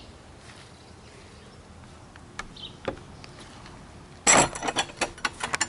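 Crawl space access door or panel being handled: a few faint clicks, then about four seconds in a quick clatter of knocks and rattles lasting just over a second.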